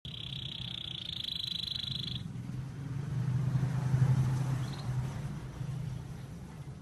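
Canary giving a fast rattling trill in the style of a lovebird's 'ngekek' for about two seconds, then falling quiet. A low hum follows, swelling to its loudest about four seconds in.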